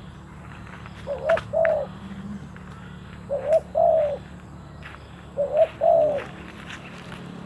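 Spotted dove cooing: three repeated coo phrases about two seconds apart, each a quick double note followed by a longer note.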